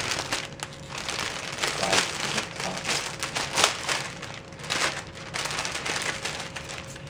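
Sheet of cellophane crinkling as it is lifted and gathered up around a bottle, in irregular crackles.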